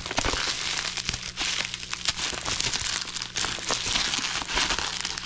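A packaging bag crinkling and crackling continuously as it is handled and opened, with many small irregular crackles.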